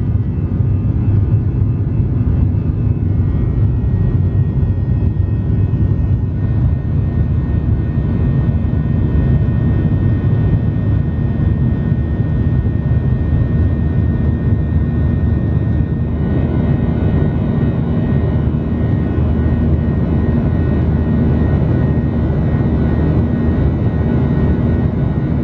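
Boeing 737-900ER cabin noise in climb: its CFM56-7B turbofan engines running steadily at climb power, heard from a window seat over the wing, with a thin high whine over a deep steady rush.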